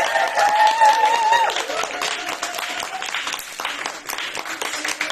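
Audience applauding, with several high, drawn-out wavering cheers over the clapping in the first second and a half.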